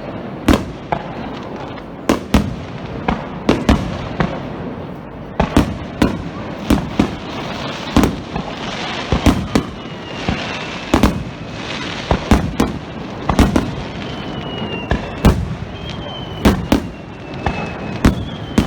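Starmine fireworks barrage: aerial shells bursting in quick succession, well over a dozen sharp bangs at one to two a second, over a steady background rush. A few faint high whistles, falling slightly in pitch, sound in the second half.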